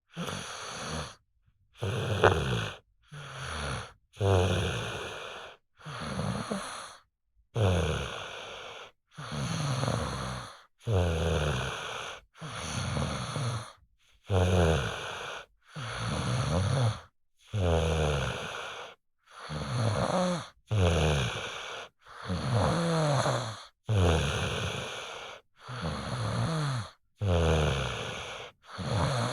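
Child snoring in deep sleep: a steady rhythm of snoring breaths, each about a second long, with short silent breaks between them.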